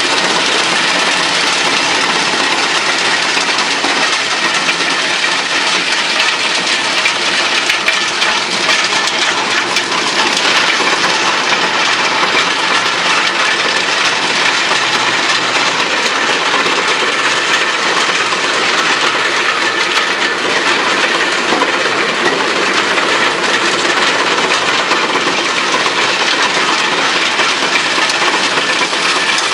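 Model 216 drum wood chipper running: a steady, loud mechanical din with a dense, continuous clatter.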